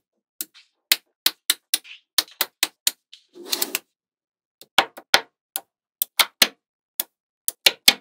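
Small magnetic metal balls snapping together in sharp clicks, irregularly spaced, as rows of them are pressed into place on a flat slab. A short rattling clatter comes a little after three seconds in.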